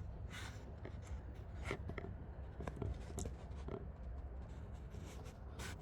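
Scattered short rustles and clicks over a steady low rumble.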